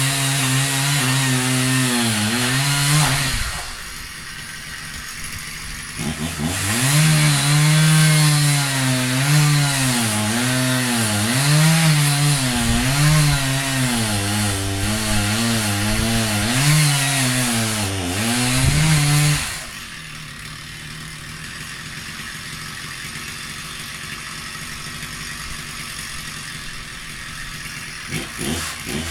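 Chainsaw cutting wood, its engine pitch dipping and rising repeatedly as it bogs under load. It eases off briefly about four seconds in, drops to a quieter steady running from about twenty seconds in, and revs up again right at the end.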